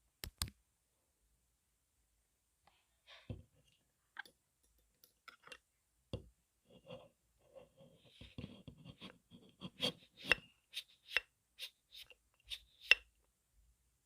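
Close-miked ASMR trigger sounds on an earphone microphone: scattered soft taps and scratchy rustling, then a run of sharp, evenly spaced clicks near the end.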